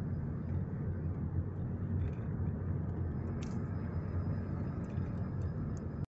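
Car cabin noise while driving slowly: a steady low rumble of engine and tyres on the road.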